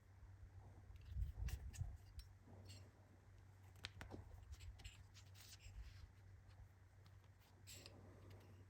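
Faint, scattered clicks and rustles of hands handling small parts and packaging, over a steady low hum.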